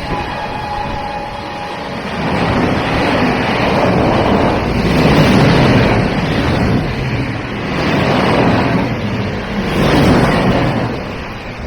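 An express train running through the station at speed: a loud rush of wheel and air noise over a deep rumble, swelling and easing every couple of seconds, with wind buffeting the microphone. A horn note dies away in the first two seconds.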